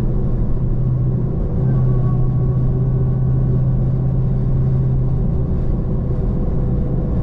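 Hemi V8 car cruising at a steady speed: a low, even engine drone over road rumble.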